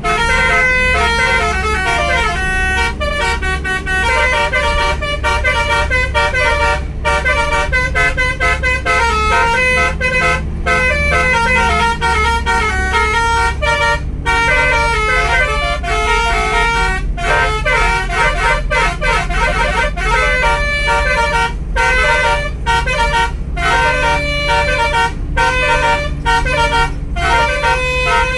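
Bus Basuri telolet horn playing a tune: a run of loud, flute-like horn notes changing pitch in quick steps, with a stretch of sliding notes about two thirds through. A bus engine rumbles underneath.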